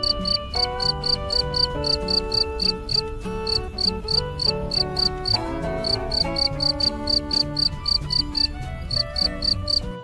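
Cricket chirping in short, regular chirps, about four to five a second, with a few brief pauses, over background music.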